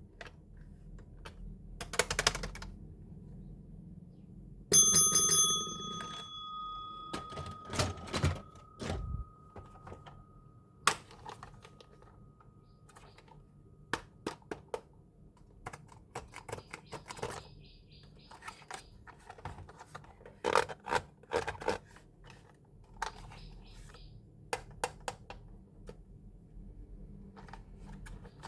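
Small plastic clicks, taps and scrapes of toys and packaging being handled. About five seconds in, a ringing tone sounds and fades away over several seconds.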